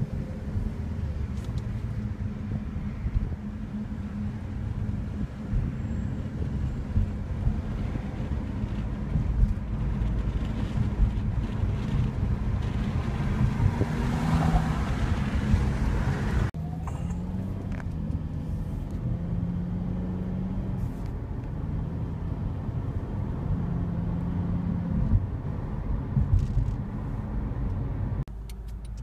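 Low, steady rumble of a car in motion, heard from inside its cabin, with a louder rushing swell about halfway through. The sound changes abruptly twice, once just after the middle and once near the end.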